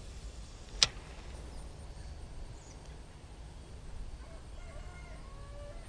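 One sharp click from the spinning reel about a second in, over a low steady rumble of wind on the microphone; a few faint short tones come near the end.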